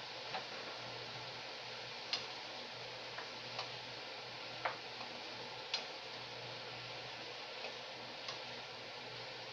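A spatula knocking and scraping against a frying pan while beef is stirred, sharp clicks coming at uneven intervals, about eight in all. Under them runs a steady hiss with a low hum.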